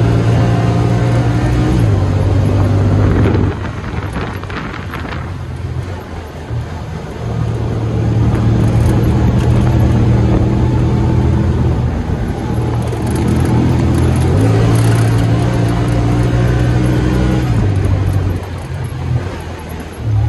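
Side-by-side UTV engine heard from inside the cab while driving a dirt trail, a steady drone with road noise. It drops off briefly about three and a half seconds in and again near the end as the throttle eases, then picks back up.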